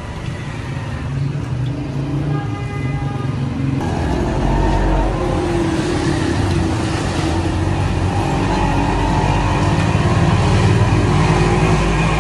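Steady low rumble, joined about four seconds in by a rushing hiss as hot water drains out of boiled basmati rice strained in a cloth over a large aluminium pot.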